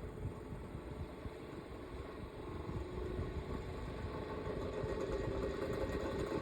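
Small 6-inch antique electric fan running, its motor hum mixed with a rattling vibration, growing a little louder about halfway through. The vibration comes from the fan still being off balance.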